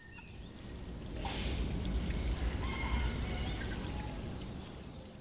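A rushing, water-like noise fades in, swells to its loudest in the middle and fades away, with a few faint short tones in it.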